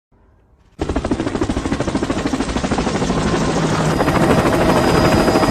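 A loud mechanical running sound with a fast, even pulsing starts suddenly about a second in and grows slightly louder.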